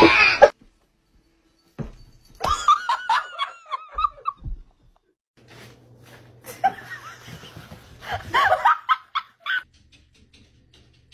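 A person laughing in a quick run of high-pitched giggles, then more laughter a few seconds later.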